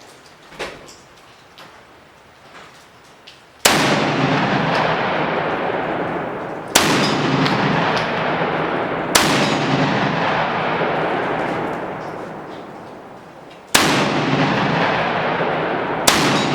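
Benelli M4 12-gauge semi-automatic shotgun firing slugs: five shots at uneven intervals, the first about three and a half seconds in, each boom trailing off slowly. A few faint clicks of gun handling come before the first shot.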